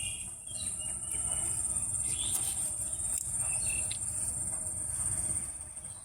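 A chorus of insects holding one steady high-pitched drone, over a low rumble.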